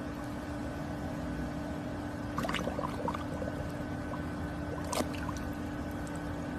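Small splashes and water lapping as a golden retriever shifts in shallow pool water and noses at a floating ball, with a sharper splash or slurp about two and a half seconds in and another about five seconds in, over a steady hum.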